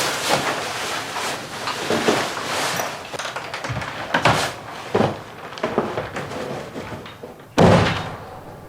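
Irregular rustling and short knocks of things being handled, with one louder sudden knock near the end that dies away quickly.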